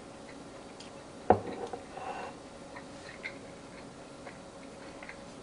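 A spoon knocks sharply once against a mug about a second in. A few lighter clinks and taps follow, over a faint steady hum.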